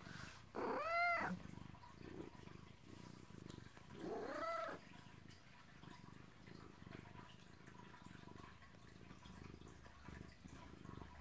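Domestic tabby cat giving two short meows that rise and fall in pitch, about three and a half seconds apart, over soft, steady purring: attention-seeking calls from a cat that wants to cuddle.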